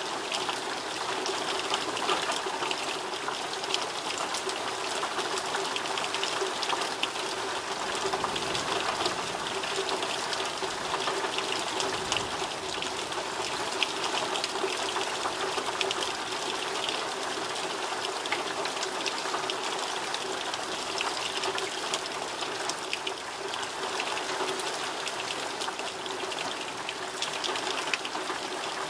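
Heavy rain falling steadily, a dense hiss with many close drop impacts.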